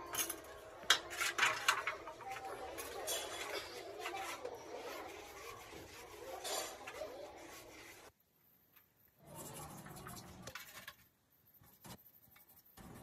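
Metal turbocharger parts clinking and knocking against a steel wash basin, with rubbing as they are handled and scrubbed. After about eight seconds it drops to faint scrubbing and a few light ticks.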